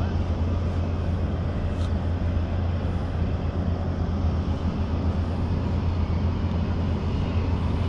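A steady low rumble with an even hiss above it, unbroken throughout.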